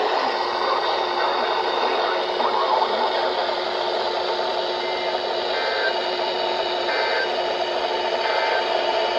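Steady, loud hiss of radio static from a weather radio receiver on a weak signal, with a faint voice buried in the noise in the first few seconds.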